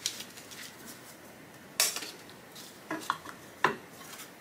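Clicks and light clatter of a flat abrasive disc being handled and fitted onto the wheel of a Scimech flat-hone shear-sharpening machine, changing to a more aggressive 60-micron disc. A sharp click about two seconds in is the loudest, with a few smaller knocks later.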